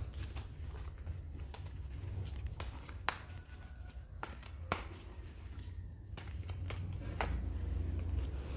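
Tarot cards being handled and turned over: a scatter of soft clicks and rustles over a steady low hum.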